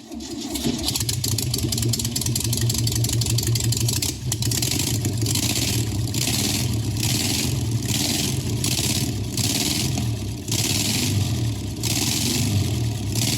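A motor vehicle engine running and revving. A regular hiss pulses over it about once a second.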